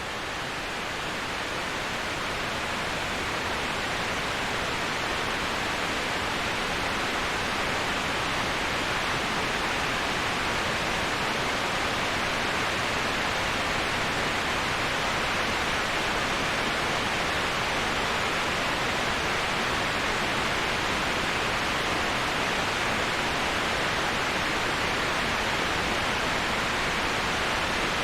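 Waterfall: a steady, even rush of falling water, growing louder over the first few seconds and then holding level.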